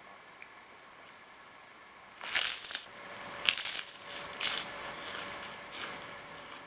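Crunching bites into a puffed rice cake, close to the microphone: three loud crunches about a second apart starting about two seconds in, then fainter chewing crunches.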